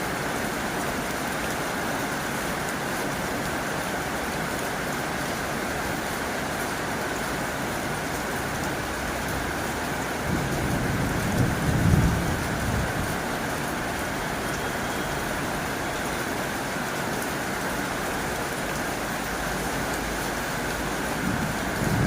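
Heavy rain drumming steadily on a tin roof. A low rumble swells and fades about halfway through, and another begins near the end.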